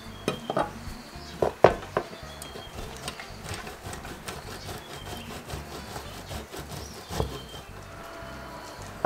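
Knocks of a block of mozzarella and a knife on a wooden cutting board, then mozzarella scraped across a metal box grater, with another knife knock on the board near the end as salami is sliced; background music underneath.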